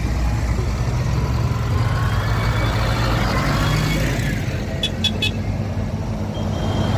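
Diesel engines of large farm tractors (Claas and Fendt) running steadily as they pass close by in a slow convoy, with tyre noise swelling as one goes right past. Three short horn toots come in quick succession about five seconds in.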